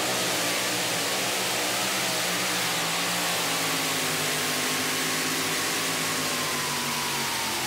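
Supercharged engine of a two-wheel-drive pulling truck running flat out under load as it drags the weight sled down the dirt track, a steady, loud run with a strong hiss; its pitch sags slightly in the second half of the pull.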